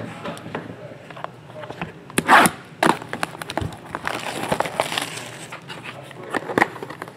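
A sealed trading-card box being cut and torn open by hand: cardboard and plastic wrapping crackling and tearing amid sharp clicks, with the loudest rip a little over two seconds in.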